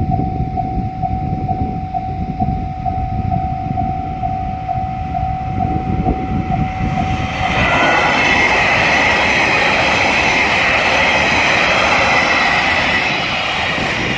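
Japanese level-crossing warning bell ringing at about two strokes a second over a low rumble. About halfway through, a JR Hokkaido 789 series limited express electric train passes at speed, and the loud rush of its wheels on the rails drowns out the bell.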